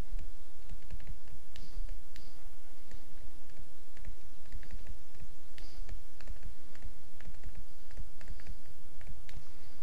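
Pen stylus tapping and scratching on a tablet screen during handwriting: a scatter of light, irregular clicks over a steady low hum.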